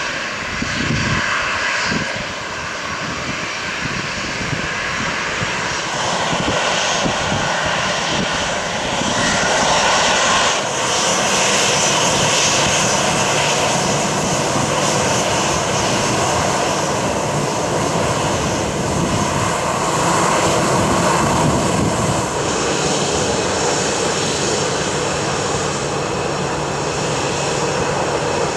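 Boeing 737-800's CFM56-7B turbofan engines running as the airliner moves on the ground, a steady jet rush and whine. It grows louder between about six and ten seconds in, then holds.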